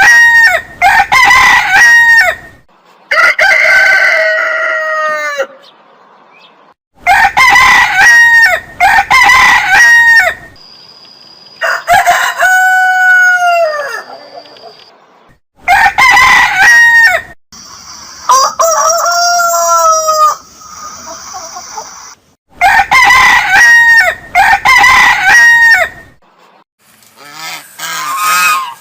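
Rooster crowing repeatedly: about seven loud crows a few seconds apart.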